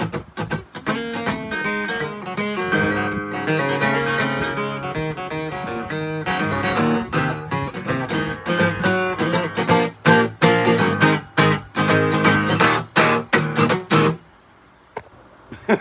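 Acoustic guitar strumming and picking a blues instrumental outro with a steady rhythm, stopping about fourteen seconds in, then a few last strums near the end.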